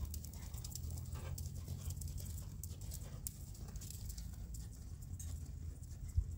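Horse's hoofbeats on a sand arena: soft, uneven thuds and ticks over a low steady rumble.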